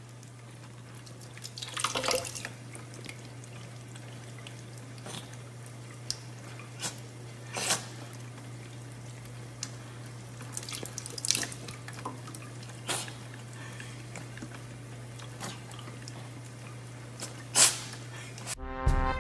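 Thin stream of water running from a kitchen faucet into a stainless steel sink, broken by short splashes, about eight, as a cat pokes its head into the stream to drink. Music starts just before the end.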